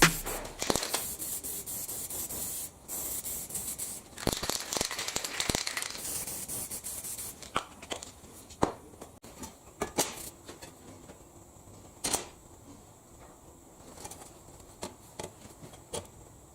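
Aerosol spray paint can spraying in a few long hissing bursts for the first several seconds, then scattered small clicks and knocks.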